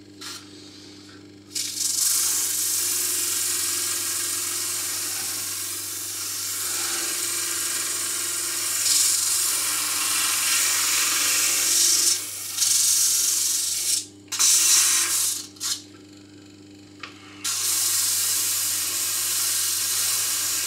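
Tiny homemade disc sander running with a steady motor hum while a piece of hardwood is pressed against its sandpaper disc, giving a loud sanding hiss. The sanding runs unbroken for about twelve seconds, then stops and starts a few times in short spurts before a last long pass.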